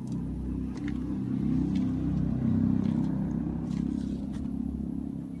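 Engine rumble of a motor vehicle, growing louder towards the middle and then easing off, as when it drives past.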